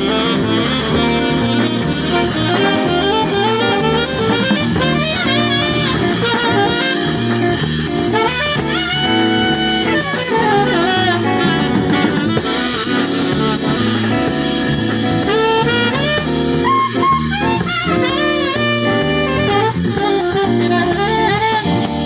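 Live jazz band playing, a saxophone carrying the melody over a drum kit and a steady beat.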